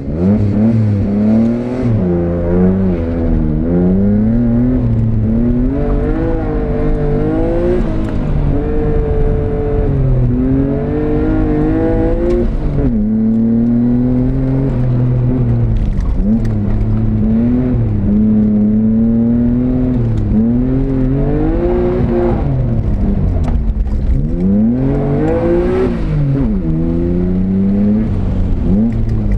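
Nissan R32 Skyline's engine heard from inside the cabin on a hard autocross run, revving up and falling back again and again as the driver accelerates, shifts and lifts for the corners, with a sudden drop in pitch about 13 seconds in.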